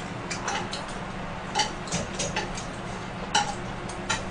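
Oil and duck fat crackling in a hot frying pan of smoked duck slices: irregular small pops and clicks over a faint sizzle, with two louder clicks about one and a half and three and a half seconds in.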